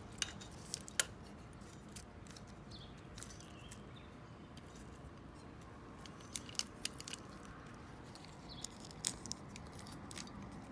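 Spring-loaded wire stripper/crimper gripping and stripping the insulation off a thin radio-harness wire: a series of sharp clicks and snaps from the tool's jaws and springs, a few about a second in and more between six and ten seconds.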